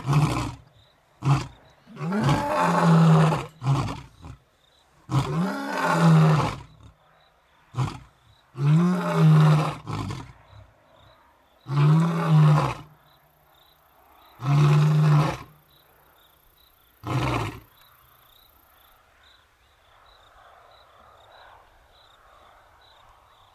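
Two male lions roaring: a bout of about five deep, drawn-out roars, each a second or so long, with short grunts between. It ends with a last short grunt about 17 seconds in. This is their long-distance call proclaiming the area as theirs. Faint crickets chirp once the roaring stops.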